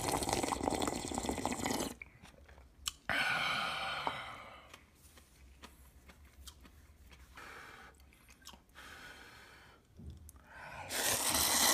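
Close-miked eating of spicy cup ramen noodles: loud bursts of slurping and chewing in the first two seconds, again around three to five seconds, and from about eleven seconds on, with quieter chewing between.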